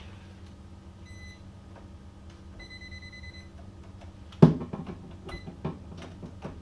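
Non-contact voltage tester beeping in steady high electronic tones: a short beep about a second in, a longer one of almost a second around three seconds in, and a short one near the end, signalling live voltage at the switch. A sharp knock about four and a half seconds in, with smaller clicks of handling around it.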